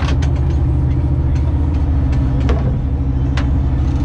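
Fishing boat's engine running steadily with a low hum, with a few short sharp clicks or knocks on top.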